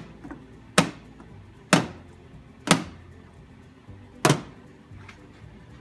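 Tools with neodymium magnets glued on clacking against the steel side of a toolbox: four sharp metallic strikes about a second apart, each with a brief ring.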